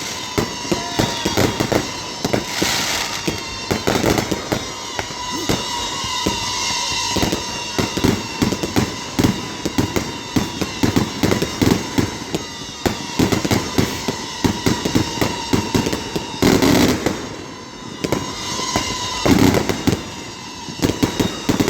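Aerial fireworks grand finale: a dense, rapid string of bangs and crackles, with heavier bursts about three seconds in and twice near the end.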